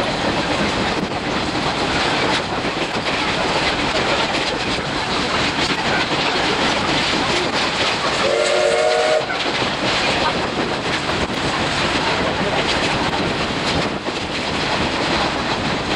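Steady running noise of a steam-hauled passenger train heard from inside an Oha 50-series coach: a continuous rumble and rattle of wheels on rail. About eight seconds in, the C12 steam locomotive's whistle sounds once, briefly, for about a second.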